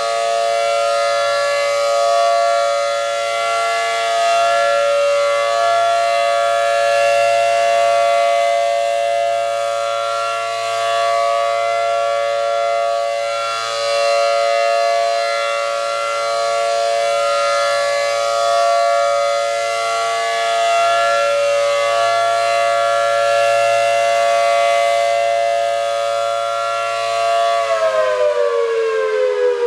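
ACA Allertor 125 civil defense siren (10/12 port) sounding its steady alert, a chord of two tones. It swells and fades in loudness as the rotating horn sweeps around. Near the end the chord starts falling in pitch as the siren winds down at the end of the alert.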